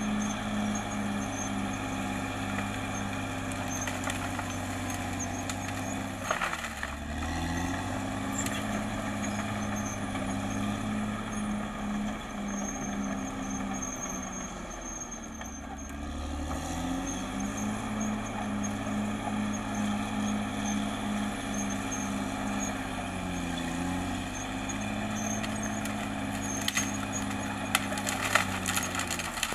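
Caterpillar D6R XL bulldozer's diesel engine running steadily, its speed sagging and recovering about four times, with a few metallic clanks, the loudest near the end.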